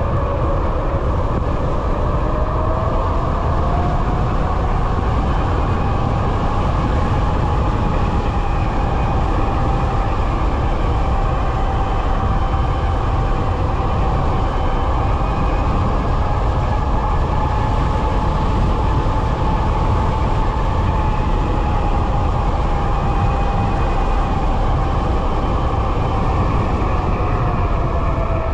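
QS273 electric hub motor whining under way. The whine rises in pitch over the first few seconds as the bike speeds up, holds steady, and drops again near the end as it slows. Heavy wind rumble on the microphone sits underneath.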